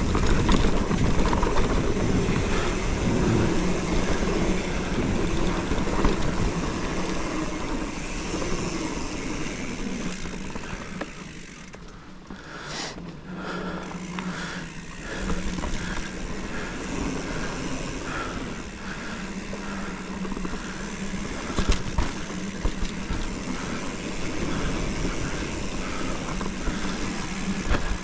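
Hardtail mountain bike with plus tyres riding a dirt trail: tyre and trail noise with wind rushing over the action-camera microphone. It quietens briefly about twelve seconds in, then runs on, with a sharp knock a little after twenty seconds.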